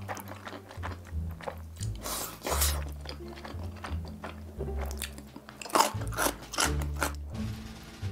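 Close-miked eating sounds: a person chewing and crunching food with many short wet clicks and crackles, over background music with a steady bass line.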